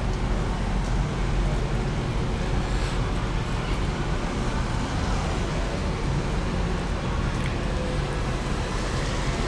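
Steady city street ambience: a constant low rumble under an even hiss, like distant traffic, with no distinct events.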